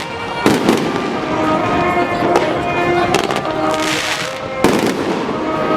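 Fireworks going off in a display: several sharp bangs with crackling, over music with held notes.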